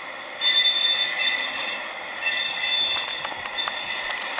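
Steel wheels of freight cars, empty rail-train flatcars, squealing against the rails as the train enters the yard. The shrill squeal of several high tones sets in about half a second in, dips briefly near the middle and comes back.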